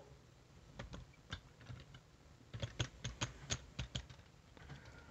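Faint light clicks and taps of hands handling equipment on a bench: a few scattered, then a quick run of about ten in the middle.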